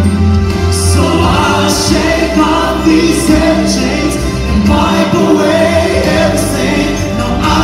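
Mixed gospel choir and male soloist singing live through microphones over amplified instrumental accompaniment with a steady bass, new sung phrases entering every couple of seconds.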